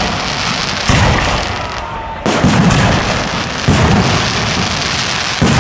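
Aerial firework shells bursting overhead: four booms about a second and a half apart, each trailing off in a long fading echo.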